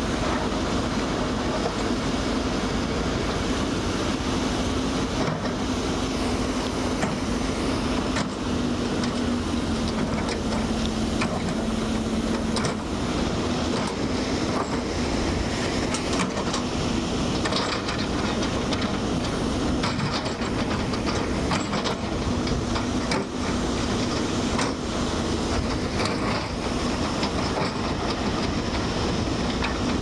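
Waves breaking and washing ashore, with wind buffeting the microphone: a steady, unbroken rushing noise with a faint low hum underneath.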